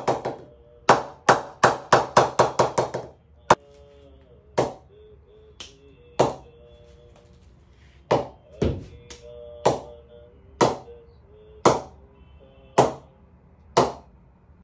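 Wooden mallet knocking the face of an SS English willow cricket bat in quick runs of sharp knocks, showing off the bat's ping, then a few single knocks. From about eight seconds in, a cricket ball bounces on the bat face about once a second.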